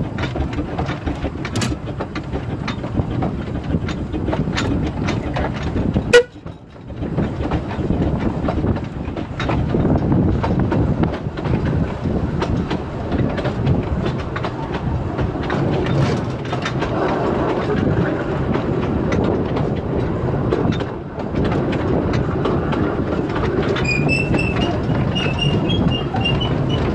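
Bagnall narrow-gauge steam locomotive heard from its footplate while running along the line: a steady rumble with scattered clicks of the wheels over the track. A sharp knock about six seconds in is followed by a brief lull, and a few high squeaks come near the end.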